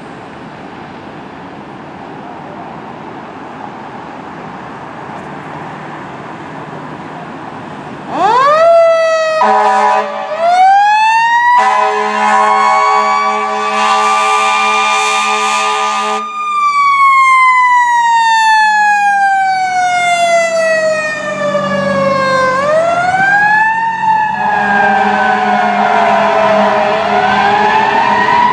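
A fire engine's low rumble, then its Federal Q mechanical siren winds up about eight seconds in, with long air horn blasts over it. The siren coasts down slowly in a long falling wail, is wound up again, and the air horns sound once more near the end.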